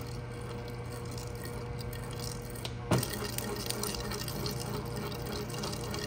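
Hobart C100 10-quart mixer running steadily after a transmission rebuild and fresh grease, its motor and gearbox giving a steady hum, running well. One sharp click about three seconds in.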